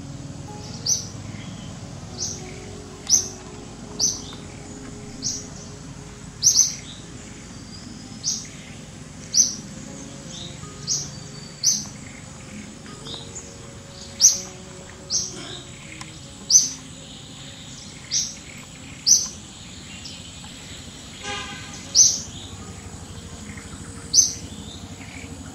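A bird repeating a short, high, slightly falling chirp about every second, at uneven intervals, over a steady low background hum.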